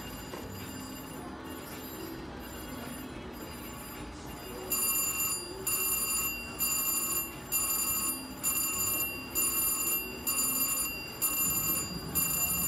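Electronic bell of a VGT reel slot machine ringing in quick repeated bursts, about one every half-second, starting about five seconds in over a low steady casino din.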